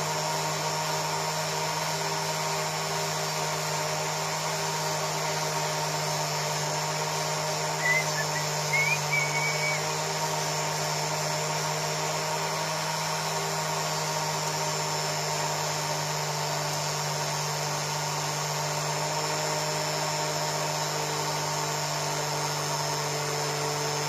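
Flexible-shaft rotary tool (Dremel-type) running steadily with a brass wire brush working over an aluminium engine casing, cleaning it up for polishing. A few short, louder chirps come about eight to ten seconds in.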